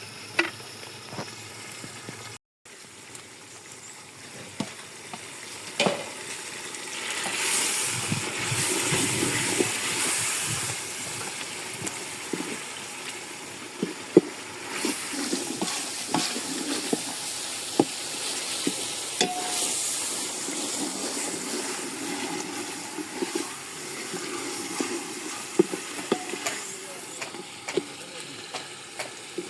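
Food frying and sizzling in a pot as it is stirred, with scattered sharp clicks and knocks. The sizzle grows louder about seven seconds in.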